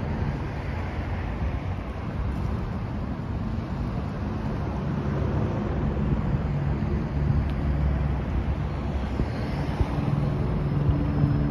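City street traffic: a steady rumble of cars driving along a multi-lane one-way street, with the engine hum of a nearer vehicle growing louder near the end.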